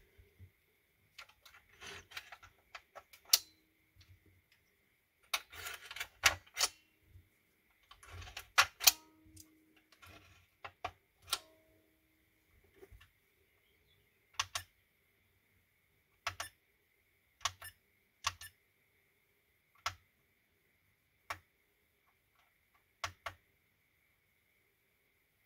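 Lithium-ion cells being handled and snapped into the spring-loaded slots of a SkyRC four-bay battery charger, a run of plastic and metal clicks and rattles. After that come single sharp clicks every second or two as the charger's buttons are pressed to start the test program.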